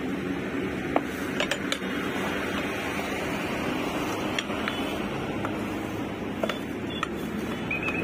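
Steel tyre levers clinking and scraping against a Bajaj Pulsar 150's alloy wheel rim as the tyre bead is pried over the rim by hand: a handful of sharp, irregular metal clicks over a steady background noise.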